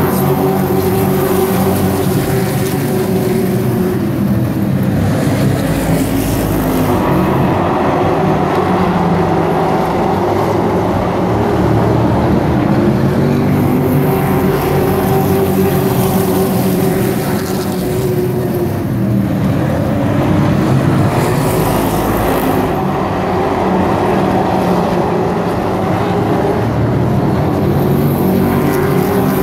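A field of short-track race trucks running around the oval, many engines at once, the note rising and falling slowly as the pack comes round and passes.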